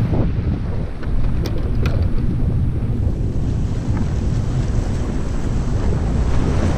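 Wind buffeting the action camera's microphone, a steady low rumble, with the sea washing against the jetty rocks beneath it. Two faint clicks come about one and a half to two seconds in.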